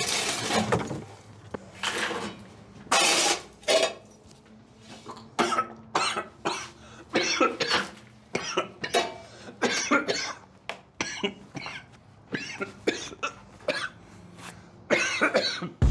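Shovel scraping up rocks and debris from a concrete floor and tipping them into a plastic bucket: a run of irregular scrapes and clatters, one or two a second.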